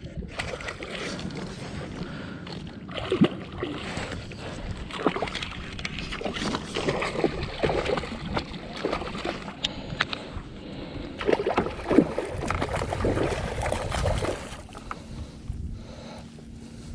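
Water splashing and sloshing against a plastic fishing kayak, with irregular knocks and clatter on the hull; the sharpest knocks come about three and twelve seconds in, and it settles down near the end.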